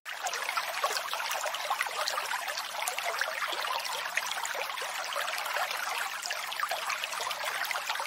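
Steady trickling, splashing water like a small stream, cutting in suddenly.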